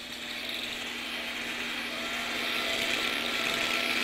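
High-speed surgical bone drill running steadily with suction hiss while drilling out the temporal bone, a thin steady whine joining about halfway through and the sound slowly growing louder.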